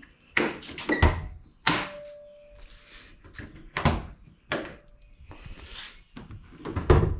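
Flush-mount hood latches on a carbon-fibre hood being worked by hand: a string of sharp clicks and clacks about a second apart, the loudest near the end as the latches are released.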